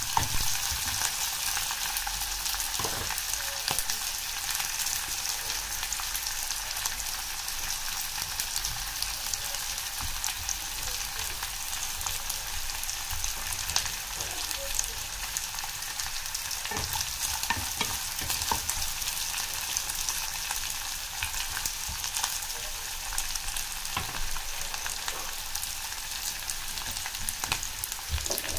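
Dried anchovies sizzling in hot oil in a pan, a steady crackle of many small pops, with a wooden spoon stirring them at times.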